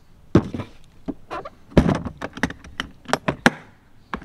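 A run of knocks, clacks and thuds as detailing gear and bottles of buffing compound are handled and set down while being packed away.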